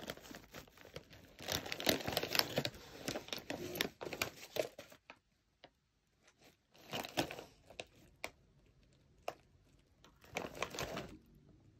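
Foil-lined plastic snack bag crinkling as hands handle it and reach in for pieces. The crinkling comes in bursts: a long dense stretch in the first half, then shorter bursts with a few single light clicks between.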